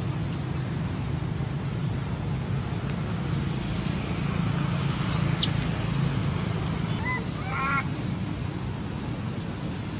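Baby macaque screaming in distress while an adult monkey pins it down, a harsh, continuous crying. A few brief higher calls sound over it about five and seven seconds in.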